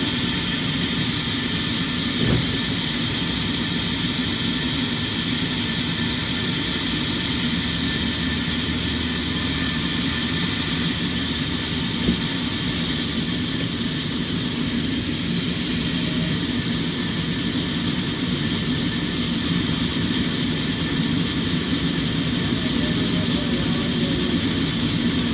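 Sawmill machinery running with a steady, continuous drone, with a small knock about two seconds in and another near the middle.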